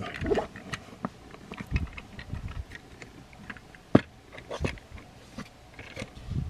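Plastic parts of a Transformers action figure clicking and rubbing as they are handled, pegged and folded: scattered small clicks, the sharpest about four seconds in.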